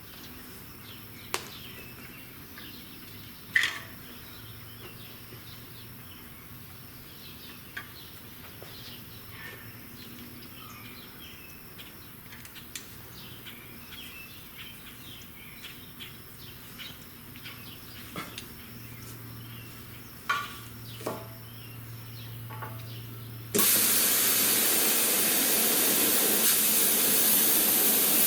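Faint background with scattered clicks and chirps. Then, about 23 seconds in, a loud steady hiss starts suddenly: a cutting torch's gas flowing to cut thick steel plate.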